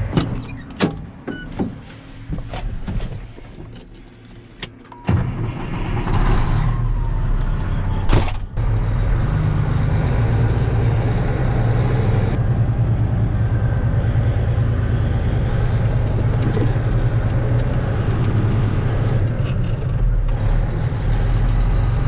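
Clicks and knocks as someone climbs into a semi truck cab. About five seconds in, the semi's diesel engine comes in loud and runs steadily with a low drone, heard from inside the cab. A sharp thump comes about eight seconds in.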